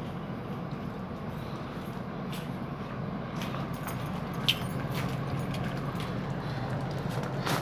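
Outdoor condensing unit of a Midea 24,000 BTU DC inverter mini-split air conditioner running, a steady low hum with fan rush. A few light clicks come through about halfway through.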